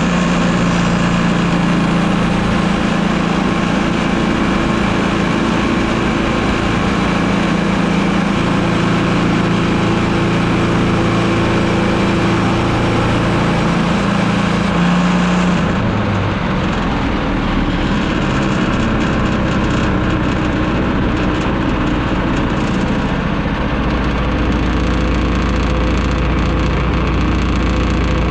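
Woodland Mills portable bandsaw mill running, its gas engine under steady load as the band blade cuts a yellow poplar cant into boards. About halfway through, the high hissing part of the sound drops away and the engine note shifts.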